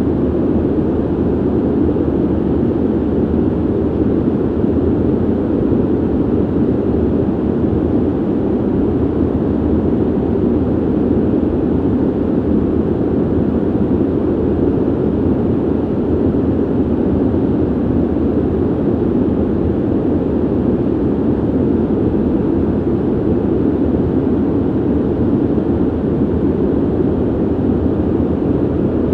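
Steady ventilation noise: an even, unchanging rush of air, deep in pitch with little hiss.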